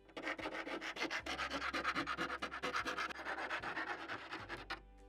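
Hand metal file rasping in quick repeated strokes along the jigsaw-cut edge of a hole in a metal door, knocking down the rough edges. The strokes stop shortly before the end.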